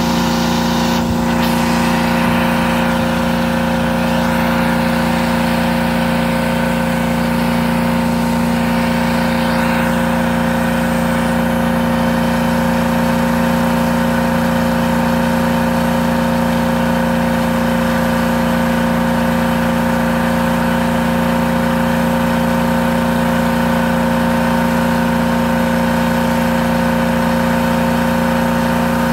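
Truck-mounted carpet-cleaning machine running steadily, its engine and vacuum blower giving a loud, even hum with a whine that holds one pitch. There is a constant rush of air over it.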